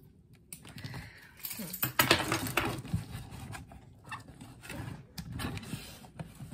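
Packing tape being pulled and torn off a cardboard shipping box, with one loud crackling rip about two seconds in, amid scratching and scraping on the cardboard.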